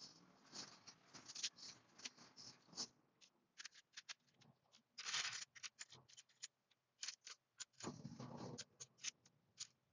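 Faint, scattered clicks and rustling as Lego Technic pieces and their plastic bags are handled, with louder bursts of rustling about five seconds in and again near eight seconds.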